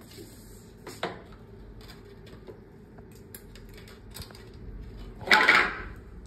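Lumps of charcoal clicking and clinking against each other and the metal grill tray as they are handled, with a sharper knock about a second in and a short, louder burst of rushing noise about five seconds in.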